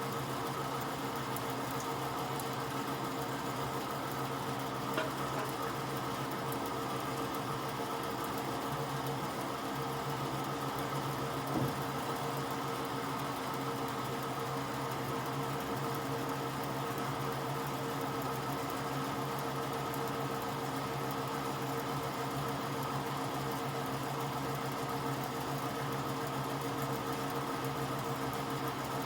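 Steady machine hum, with two faint clicks about five and eleven seconds in.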